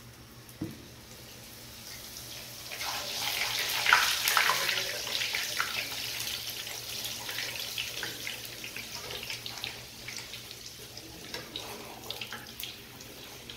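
A puri sizzling and crackling as it deep-fries in hot oil in a small wok. The sizzle swells about three seconds in and is loudest for a moment, then settles into a steady crackle, with a soft knock just before it starts.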